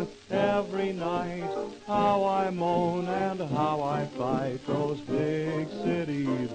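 Old-style song recording: a singer holding wavering, vibrato-laden notes over an instrumental accompaniment with a sustained low line.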